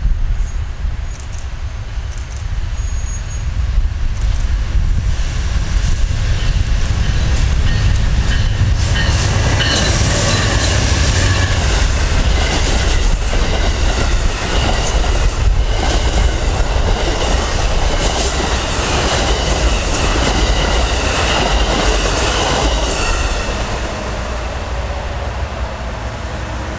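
Amtrak passenger train, led by a GE Genesis diesel locomotive, passing close by on a curve. The engine and wheel rumble build over the first several seconds, and then the stainless-steel cars roll past with a high squeal of wheels on the curve and clicking over the rail joints. The sound fades as the end of the train goes by near the end.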